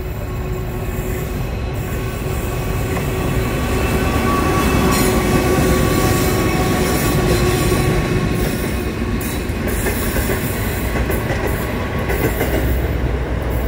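Double-stacked container freight train passing close by: its diesel locomotives rumble past, growing louder over the first few seconds, followed by a long line of container wagons rolling over the rails with a steady whine from the wheels.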